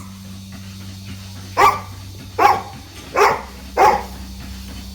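A dog barking, four single barks spaced under a second apart in the second half, over a steady low hum.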